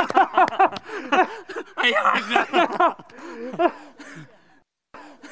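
Excited voices calling out greetings, with laughter, which break off briefly near the end.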